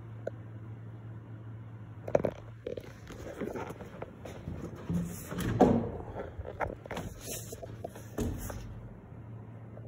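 Handling noise: irregular knocks, bumps and rustles from about two seconds in until near the end, loudest around the middle, over a steady low hum.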